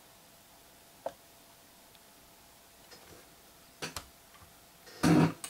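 Sparse faint computer mouse clicks, one about a second in and two close together near four seconds, then a short, louder burst of noise just before the end.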